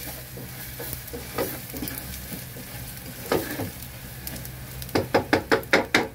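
Wooden spatula stirring and scraping a thick paste of ground spices, garlic and sesame as it fries lightly sizzling in a black pot. About five seconds in, the spatula knocks against the pot about seven times in quick succession.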